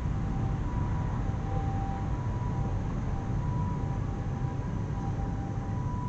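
Steady low rumble of outdoor background noise, with faint high tones that come and go.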